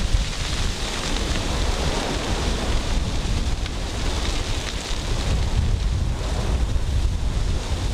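Forest fire burning in trees and brush: a steady rushing noise of the flames with a heavy low rumble of wind buffeting the microphone, and a few sharp crackles.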